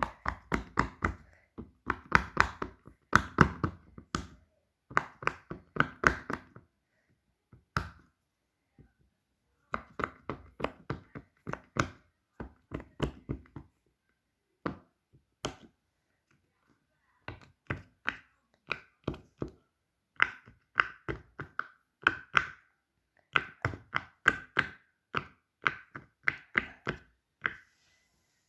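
Fidget toys being clicked and tapped in quick runs of sharp clicks and knocks, with a pause about halfway through.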